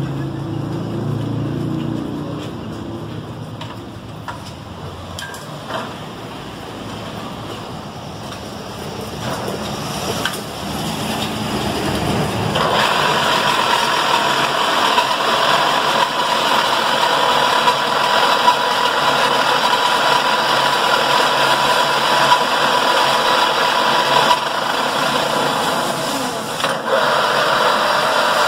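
Kitchen & Wade geared pillar drill running under power, its motor and gearbox humming. About twelve seconds in it gets louder with a steady gear whine, and it dips briefly twice near the end as the gear levers are worked.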